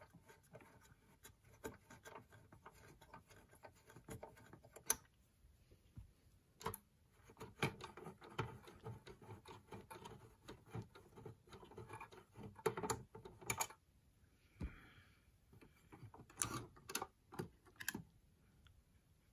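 Faint scattered clicks, taps and scrapes of hands handling a 3.5-inch hard drive, its cable connectors and the metal drive cage inside a desktop PC case, as the drive is worked loose and lifted out.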